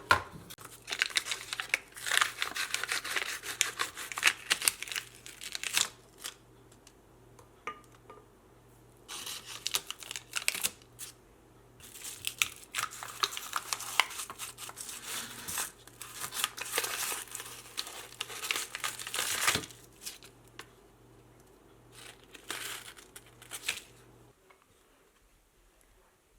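Crinkling and rustling of a sheet being handled, in several long stretches of crackling. A faint steady hum runs underneath and stops near the end.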